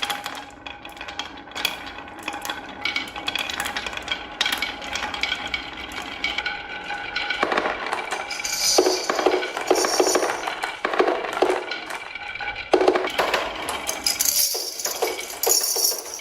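Marbles rolling down a HABA wooden marble run, ringing as they roll and clicking and clattering against the wooden track and one another, with busier bursts of clatter about halfway and near the end.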